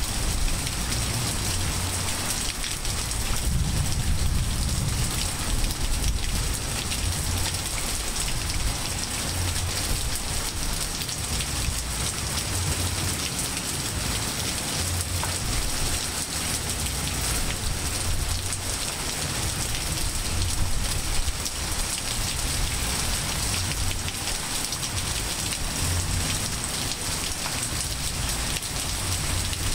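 Steady rain falling on trees, grass and pavement: a dense, even hiss with an uneven low rumble underneath.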